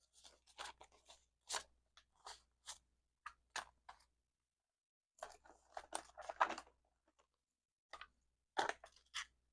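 Paper bills and cash envelopes rustling in short bursts as banknotes are handled and sorted by hand, with a longer stretch of handling about halfway through.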